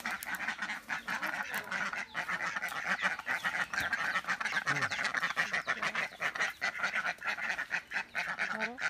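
A flock of domestic ducks quacking continuously in a dense, overlapping chatter.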